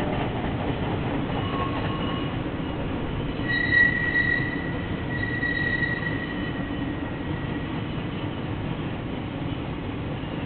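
Passenger railcars rolling across a steel truss bridge: a steady rumble that slowly fades as the train moves off. A high squeal from the train rises about three and a half seconds in, is loudest around four seconds, and dies away by about seven seconds.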